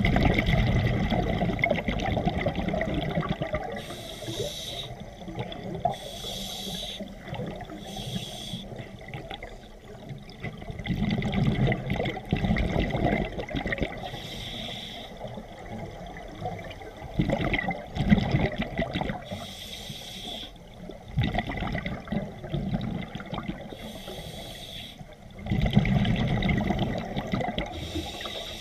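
Scuba regulator breathing underwater: short hissing inhalations through the regulator every few seconds, alternating with longer low bursts of bubbling exhaled air.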